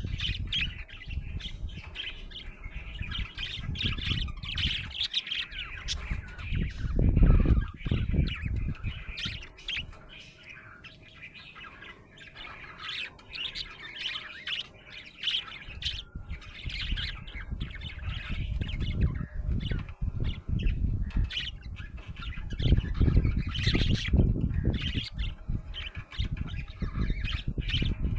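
Budgerigar chirping and chattering in a quick run of short high chirps with occasional squawks. Bouts of low rumble come and go underneath, strongest about a quarter of the way in and again near the end.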